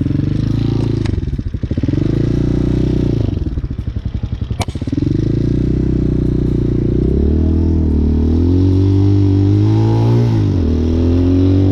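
Hawk 250 motorcycle's single-cylinder engine under way, its pitch climbing as it accelerates and dropping briefly at gear changes, about a second and a half in, near four seconds and again near the end. A single sharp click sounds just before five seconds.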